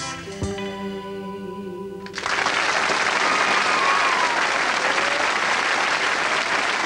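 The last held chord of a song with accompaniment rings out, then about two seconds in an audience breaks into steady applause.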